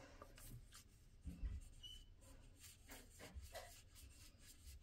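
Faint light taps and scratches of a watercolor paintbrush dabbing dots onto planner paper, with a soft low thump about a second and a half in.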